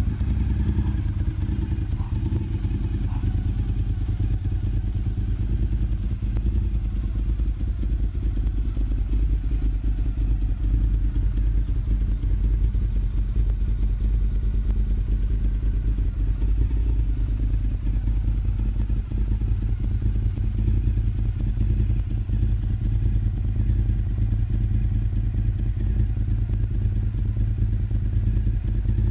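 2003 Honda RC51's 1000 cc V-twin idling steadily through a Sato Banzai carbon-fibre high-mount twin exhaust, a low, even exhaust note with no revving.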